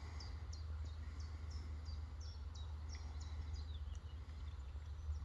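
A small bird calling over and over in short high chirps, about three a second, with a few falling notes near the end, over a steady low rumble.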